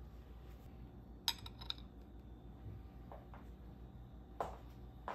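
A handful of light clicks and clinks of small hard objects, such as tableware being handled, over a steady low hum; the sharpest comes about a second in.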